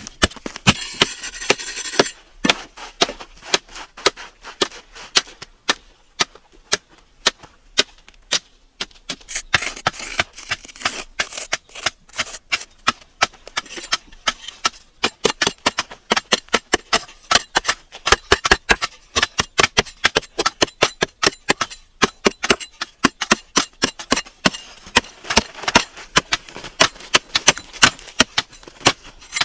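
A metal blade chopping into hard, dry, stony soil: sharp irregular strikes, several a second, with a scraping rasp near the start and again about ten seconds in.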